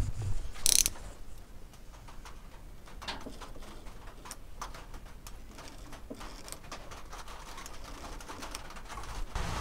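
Snap-off utility knife blade making light cuts and scrapes along the edge of old wood veneer, with scattered small clicks and one sharper scrape about a second in.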